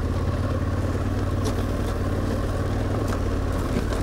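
KTM 1290 Super Adventure's V-twin engine running steadily at low, even revs under way, with a couple of faint ticks.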